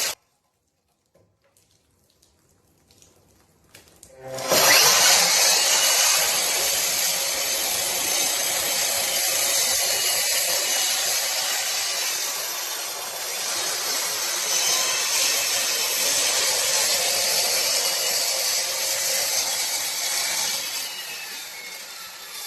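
VEVOR 12-inch 1800 W electric concrete saw starting up about four seconds in and cutting limestone, a loud, steady, hissing grind that eases off near the end.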